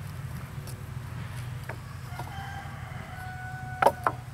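A rooster crowing once in a long call about halfway through. Near the end come two sharp knocks, the loudest sounds here, from the wooden split rails being worked apart.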